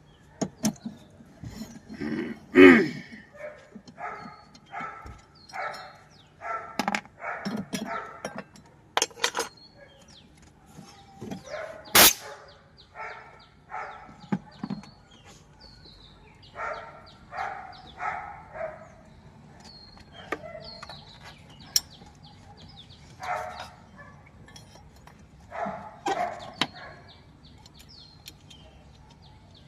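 A dog barking over and over in runs of short barks, with a few sharp clicks and faint high chirps between them.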